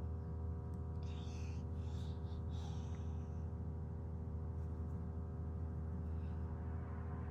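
Steady low machine hum with several constant tones, unchanging throughout, with faint brief rustling between about one and three seconds in.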